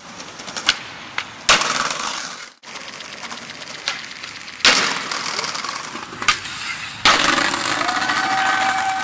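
Skateboard wheels rolling on pavement, broken by the sharp clacks of the board's tail popping and the deck and wheels slamming down on landings, about six in all.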